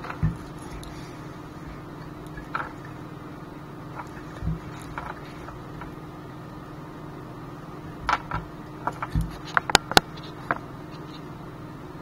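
Handling noise from a small carbon-fibre FPV quadcopter turned over in the hands: scattered light clicks and a few dull knocks of the frame and plastic propellers. A quick cluster of sharper clicks about ten seconds in, as the quad is set down on the desk mat, over a steady low hum.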